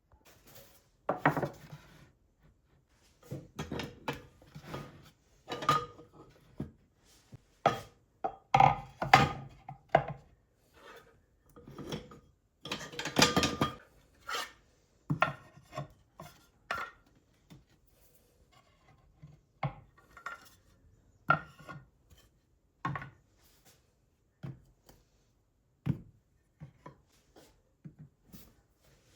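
Irregular knocks, clinks and short scrapes of household items being handled and set down on a hard surface, some with a brief ring like dishes or glass.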